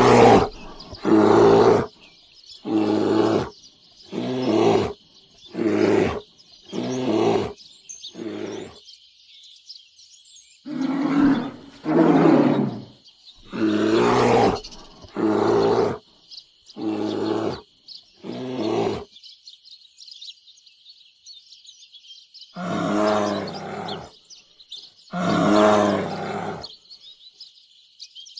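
Bear roaring in a run of short, loud calls about a second apart, in three bouts: eight calls, then six, then two longer ones near the end. A steady high chirring carries on behind.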